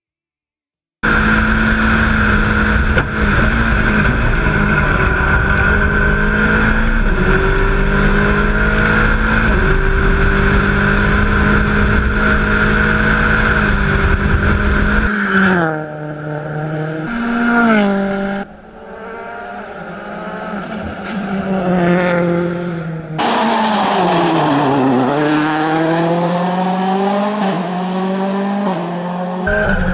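M-Sport Ford Fiesta RS WRC rally car's turbocharged engine running hard on a test stage. It cuts in suddenly about a second in and holds a steady high note with a few gear changes. After about 15 seconds the sound changes to repeated revs rising and falling as it shifts and passes, with a long falling-then-rising sweep near the end.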